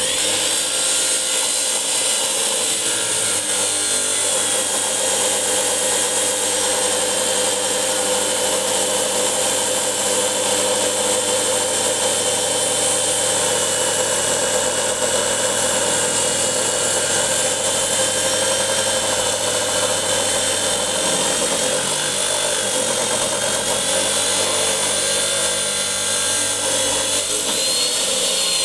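Electric abrasive chop saw with its cutting disc grinding through metal: a loud, steady roar with a high whine that wavers slightly under load and rises near the end.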